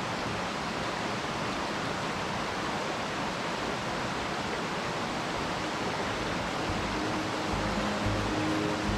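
Steady rush of a small mountain stream's flowing water. Background music fades in near the end.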